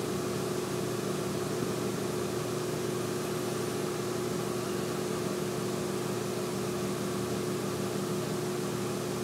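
Steady room tone picked up by the recording microphone: an even hiss with a constant low hum underneath, unchanging throughout.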